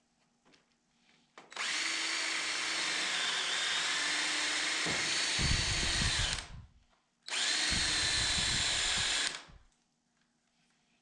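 Cordless drill boring into rough-cut lumber through a drilling jig, in two runs: a long run of about five seconds in which the bit bites in with a deeper chatter partway through, then a shorter run of about two seconds.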